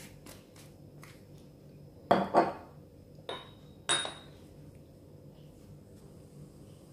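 Kitchenware being handled on a hard countertop: a glass bottle set down and a china lid lifted. A few sharp knocks come about two seconds in, then two short ringing clinks.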